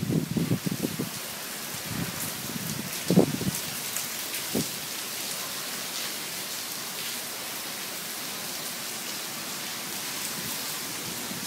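Heavy rain pouring down in a steady, even hiss, with a few short low thumps in the first five seconds.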